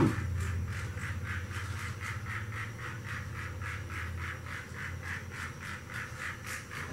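Battery-powered toy train running on its track: a steady motor whir with an even clicking, about four clicks a second, that grows gradually fainter.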